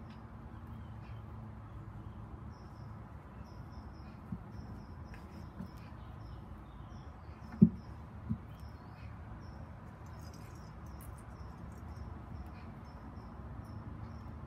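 A cat playing on a wooden cat tree: one sharp knock a little past halfway and a smaller one just after. Faint high chirping repeats a few times a second over a steady background hiss.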